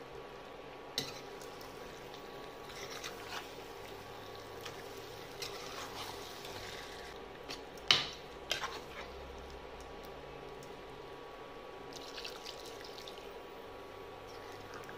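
Metal ladle stirring thick chicken curry in an aluminium pressure cooker: wet squelching and scraping with scattered clinks against the pot, the loudest a sharp clank about eight seconds in. A faint steady hum runs underneath.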